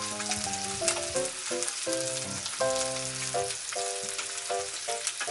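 Chicken thighs frying skin-side down in olive oil and their own rendered fat in a frying pan, sizzling with a steady crackle of spattering fat. Background music with a slow melody of held notes plays over it.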